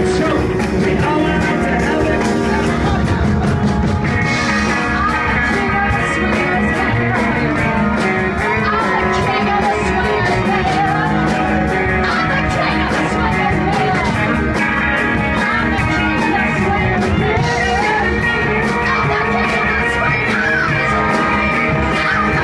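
A live horn band playing loudly: electric guitars, bass, drums and a horn section of trombone and saxophones, with a woman singing lead.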